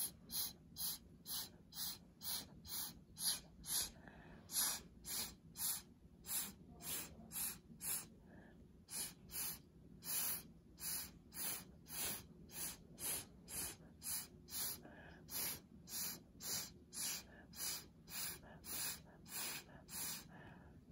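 Quick short puffs of breath blown over wet acrylic pour paint, about two a second, with a brief pause near the middle: an attempt to push the paint and bring up cells.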